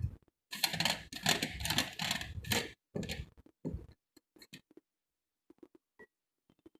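Slate pencils clattering and scraping against each other as a handful is handled, a dense rattle for about two seconds, then a few light clicks of single pencils.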